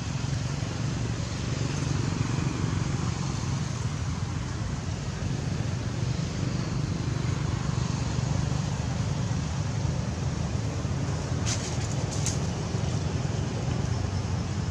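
Steady outdoor background rumble and hiss, with two short clicks close together about three-quarters of the way through.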